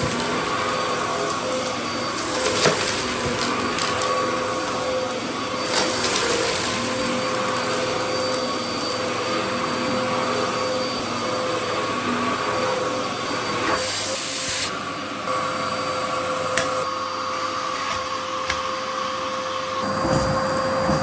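Dyson DC07 All Floors upright vacuum cleaner running steadily with a motor whine, with brief surges of rushing air a few times and occasional sharp ticks as it picks up fine dust and grit.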